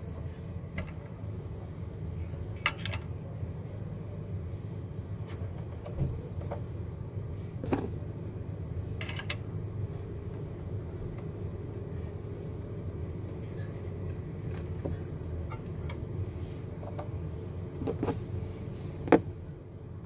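Sec-9 Pro key-cutting machine running with a steady low hum, with a few sharp clicks and taps at the clamp while one side of a car key blade is worked.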